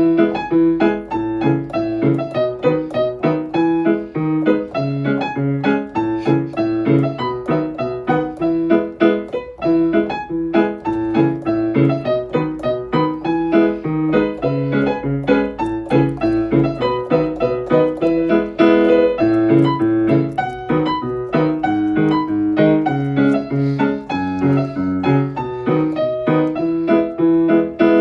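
Background piano music: a steady, unbroken run of notes.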